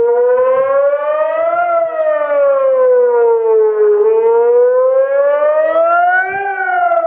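Sonnenburg SES2-500-360° electronic siren (500 W) comes on suddenly, sounding the rising-and-falling wail of the "Warnung der Bevölkerung" public-warning signal. Its pitch glides up and down, turning about every two and a half seconds.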